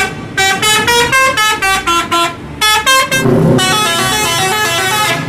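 Bus's multi-tone musical horn, the Indonesian 'telolet' kind, playing a quick tune of short stepped notes in three runs with brief breaks, over engine and traffic rumble.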